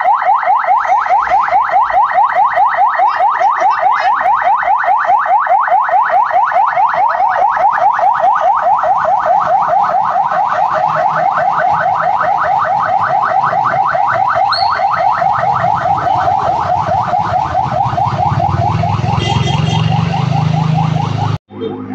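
Ambulance siren on a fast yelp, a rising wail repeating several times a second, over the hiss of heavy rain. In the last third a low engine rumble grows beneath it, and the sound cuts off abruptly near the end.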